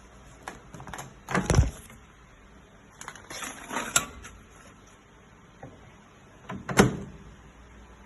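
Clicks and knocks from handling a DEXP MR-81 microwave oven, in three short clusters a couple of seconds apart. The loudest is a single sharp knock near the end.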